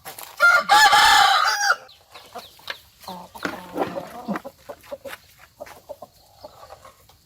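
A rooster crows once near the start, one long cock-a-doodle-doo of about a second and a half, followed by chickens clucking quietly with scattered short clicks.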